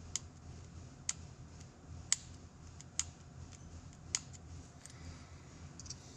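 Light, sharp metal clicks, about one a second, as a steel pick taps and catches on a handheld torque amplifier gear shaft, over a faint steady hum.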